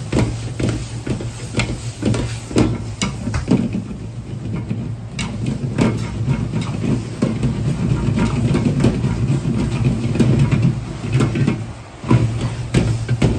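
Metal ladle knocking and scraping against a steel wok as noodles and cabbage are tossed and stir-fried, over the steady low rush of a commercial gas wok burner. The clatter comes in quick irregular strikes, with a short dip just before the end.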